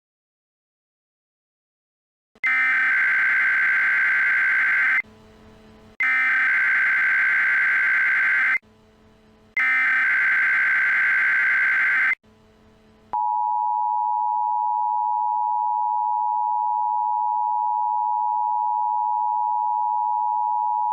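Emergency Alert System tones: three bursts of SAME header data, each about two and a half seconds long with short gaps between, starting a couple of seconds in. They are followed by the steady two-tone EAS attention signal, held for about eight seconds.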